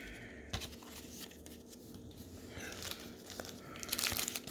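Card pack wrapper being torn open and crinkled, with light clicks of cards being handled. The rustling grows louder near the end.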